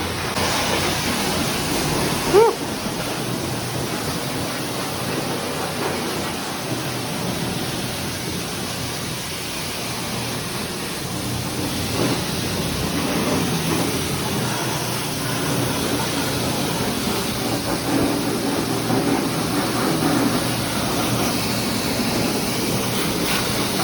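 High-pressure washer wand at a self-serve car wash spraying water and soap onto a muddy bike, a steady hiss. There is a short rising squeak about two seconds in.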